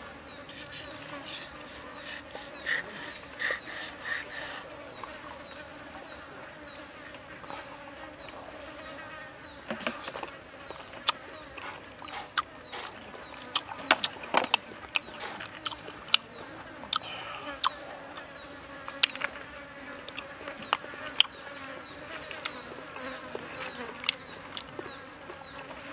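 Insects buzzing steadily in the forest, with a few soft chirps early on and a falling whistle near the end. From about halfway through, metal cutlery clicks and taps sharply and repeatedly against the plate and a stone bowl; these clicks are the loudest sounds.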